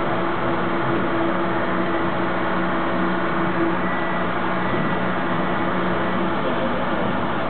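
Subway train running, heard from inside the car: a steady rush and rumble of wheels on rail with a constant hum that drops away near the end.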